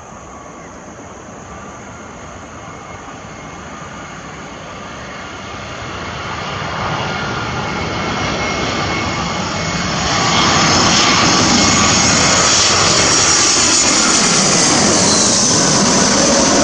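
Airbus A320-232 airliner on final approach passing low overhead, its twin IAE V2500 turbofan engines growing steadily louder with a whining note, at their loudest from about ten seconds in.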